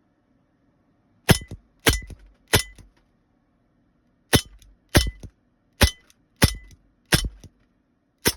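Elite Force Tactical Force 6XP CO2 airsoft pistol fired nine times at a television with 6 mm metal BBs. Each sharp shot is followed by a short clatter of the BB striking the set. The first three shots come in quick succession, then after a pause six more follow at a slightly slower pace.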